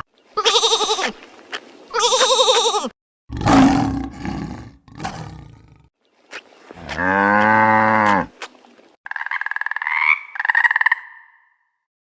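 A run of separate animal calls, each cut short before the next: two wavering high calls, then a shorter call, then a long deep call just past the middle, and two rasping calls near the end.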